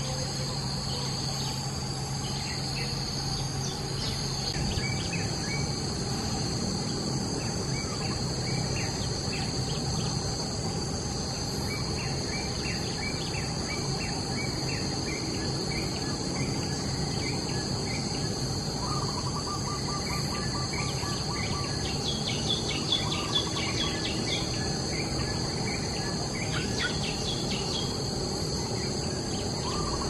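Steady high-pitched drone of insects, with short bird chirps scattered throughout and a quick trill of repeated notes about two-thirds of the way in and again near the end.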